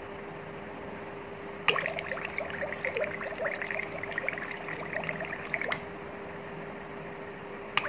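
Gas bubbling and gurgling up through water held in the open chamber of a Landi Renzo LPG vaporizer-regulator, from about two seconds in to about six seconds and starting again at the very end, over a steady hum. This is the kit's water bubble test: a little bubbling still comes through before the mixture spring setting settles it.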